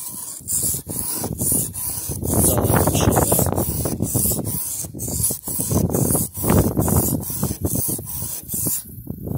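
Steel butter-knife blade being stroked rapidly back and forth across a wet whetstone lubricated with an oil-and-water mix, a continuous run of gritty rubbing strokes. This is rough sharpening to set the edge profile.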